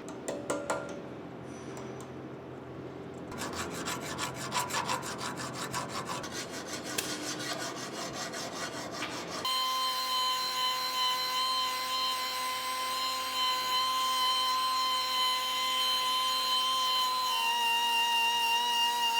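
Metal parts being deburred by hand, with a few clicks and then a long stretch of rapid rubbing and filing strokes. About halfway through, the scraping stops abruptly and a steady high whine of several tones takes over, dipping slightly in pitch near the end.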